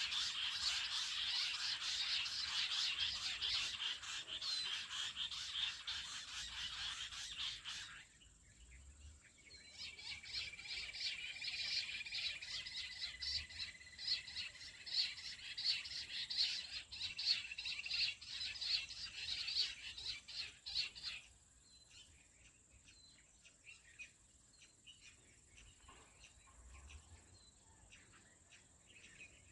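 Jungle bush quail calling: a dense chorus of rapid, high chirping notes. It stops abruptly about eight seconds in and starts again a moment later, then cuts off about two-thirds of the way through, leaving only faint scattered chirps.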